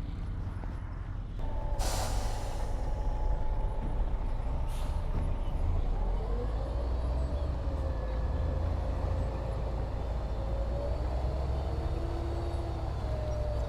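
Heavy diesel construction machinery running with a low rumble and a whine that shifts in pitch. A sharp hiss of air comes about two seconds in and a fainter one a few seconds later.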